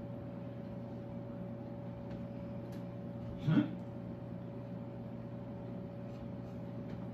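Quiet room tone with a steady electrical hum, broken once about halfway through by a short rising vocal sound from someone in the room.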